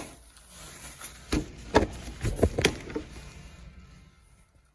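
A handful of sharp knocks and clatters, bunched between about one and a half and three seconds in, in a small tiled restroom stall.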